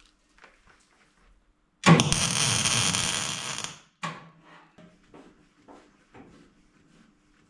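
Welding arc crackling on sheet steel in one harsh burst of about two seconds that starts abruptly and tails off. Light metallic clicks and taps follow, over a faint steady hum.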